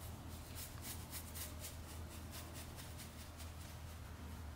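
Paintbrush bristles swishing over steel camping-stove pan supports as a dark coating is brushed on, in quick irregular strokes two or three times a second, over a steady low hum.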